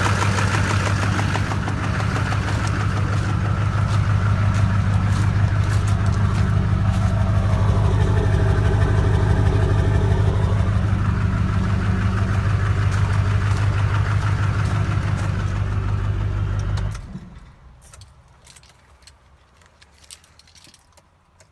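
LB7 Duramax 6.6 L V8 turbodiesel idling steadily, freshly repaired with new heads, injectors and injector sleeves after bad injector cups. It shuts off near the end, leaving only a few faint clicks.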